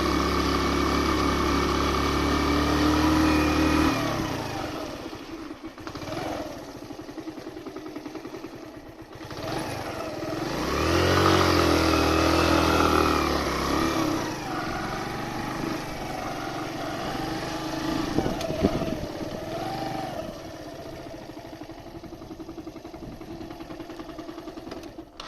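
Suzuki GN 125's single-cylinder four-stroke engine running under load, its note dropping off about four seconds in. It revs up with rising pitch a few seconds later, then settles back to a quieter steady running.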